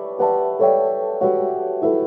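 Background piano music: sustained chords struck about every half second, each fading before the next.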